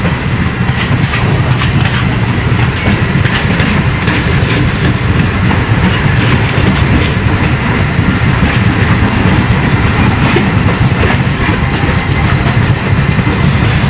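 Passenger train running at speed: a loud, steady rumble of wheels on rails with the clickety-clack of rail joints.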